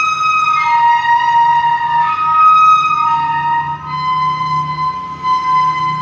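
Loud, drawn-out trumpet-like tones, two or three held together like a chord, their pitches shifting every second or two. They are the mysterious 'sky trumpet' sound the captions say was heard from the sky.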